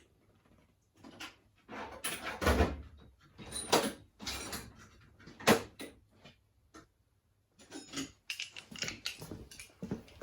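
Irregular knocks, clicks and short rustling clatters of tools and parts being handled during motorcycle engine work, with several louder knocks among quieter gaps.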